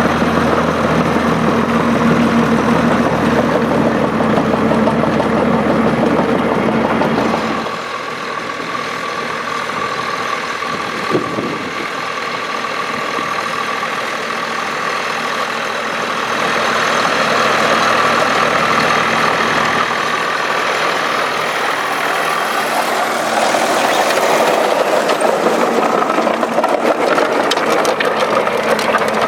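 Volvo BM tractor diesel engines running under load while ploughing. The engine sound changes abruptly about a quarter of the way in, and again near the middle and later, as one tractor gives way to another.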